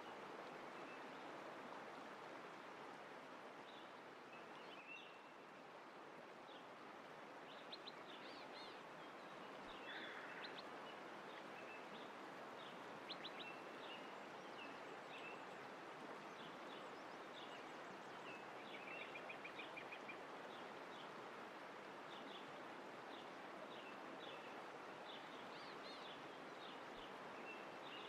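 Faint nature ambience: a steady rush of running water with small birds chirping on and off over it, including a short trill partway through.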